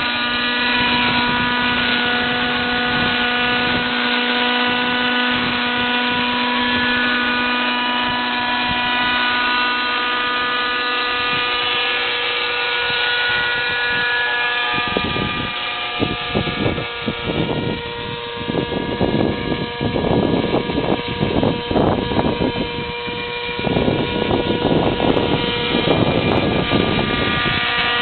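Thunder Tiger Raptor 50 RC helicopter's nitro glow engine and rotor running at a steady pitch. From about halfway, irregular rough buffeting noise comes and goes over it.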